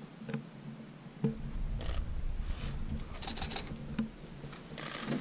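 Camera shutters clicking, first singly, then in quick bursts of continuous shooting, over a low rumble that starts about a second in.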